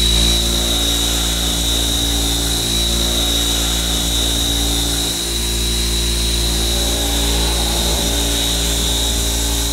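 Doosan CNC machining centres end-milling full-width slots in metal: a steady high-pitched cutting whine over the drone of the spindle, dipping briefly about five seconds in.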